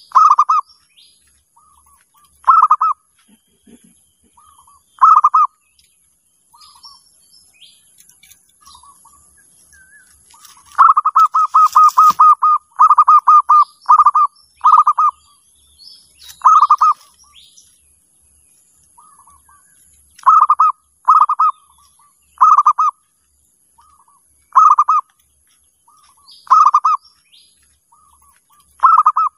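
Zebra dove (perkutut) cooing: loud, short coos repeated every two seconds or so, breaking into a fast run of clipped notes about eleven seconds in.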